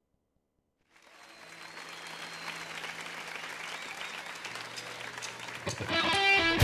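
Audience applause fading in after a second of silence and building steadily, with a thin high tone over it for a second or two. Near the end, guitar music starts up.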